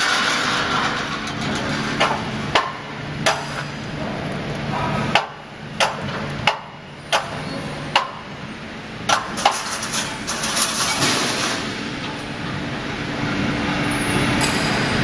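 Automatic heavy steel reinforcing-mesh welding machine running: a steady mechanical noise with a series of sharp knocks, about a dozen, in the middle of the stretch as the machine cycles through pressing and welding the cross wires.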